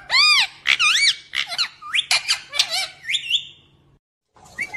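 Pet parrot chirping: a rapid run of short, squeaky, arching calls. The calls break off just after four seconds in, and one more call comes near the end.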